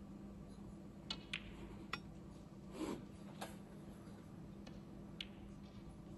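Snooker balls clicking during play: a handful of sharp, short clicks of the cue tip on the cue ball and of balls striking each other, with a fuller knock about three seconds in, over a low steady hum.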